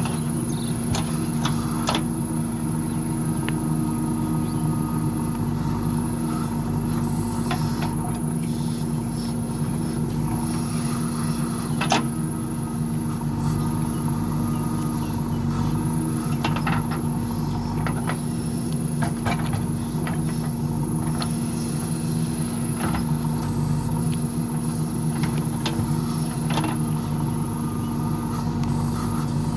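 JCB backhoe loader's diesel engine running steadily under working load, with scattered sharp knocks and scrapes, the loudest about twelve seconds in.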